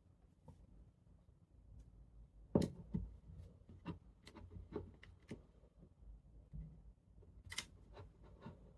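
A string of light clicks and knocks at irregular intervals, the sharpest about two and a half seconds in and another near the end, over a faint low hum.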